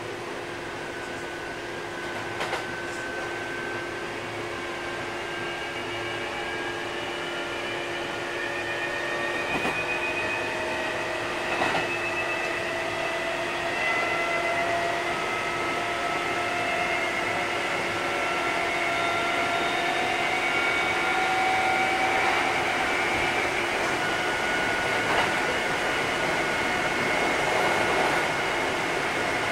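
Kintetsu 8000 series electric train gaining speed: the whine of its traction motors and gears rises slowly in pitch and grows louder over a steady hum, with a few sharp knocks.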